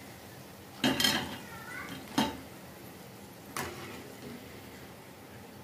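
A wire spider skimmer clanks against a metal kadhai three times, about a second in, at two seconds and again past three and a half seconds, while fried potato bhajiye are lifted out of the hot oil.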